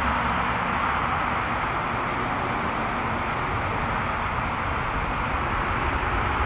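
Twin-engine jet airliner's turbofan engines running at high power for takeoff, heard from behind as a steady, unbroken noise with a low rumble underneath.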